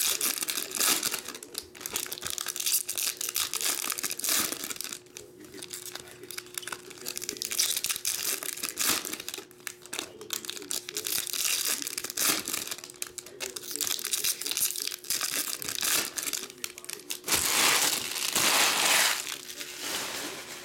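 Foil trading-card pack wrappers crinkling and tearing as packs are opened by hand, in irregular rustling bursts, loudest for a couple of seconds near the end.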